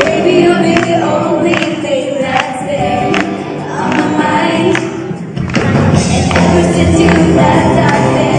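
Live pop song: a woman singing over a band, with a regular beat of sharp hits. The low end fills out and the music gets fuller about five and a half seconds in.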